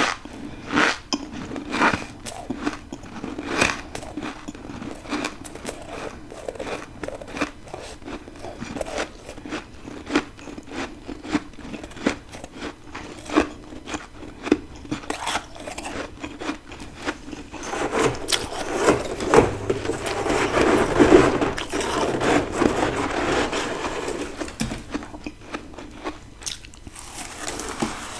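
Close-miked crunching of a person biting and chewing ice: a run of separate crisp bites, then a denser, louder stretch of crunching about two-thirds of the way through.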